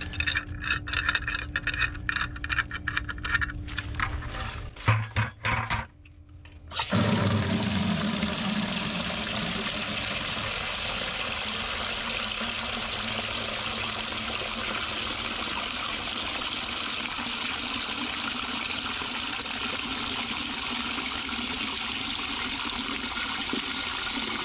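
Clicks and scrapes of a pressure gauge being handled on an outdoor hose faucet, then, about seven seconds in, a steady rush of water from the fully opened faucet pouring into a plastic bucket. It is a flow test of the house's water supply after the pressure regulator valve rebuild.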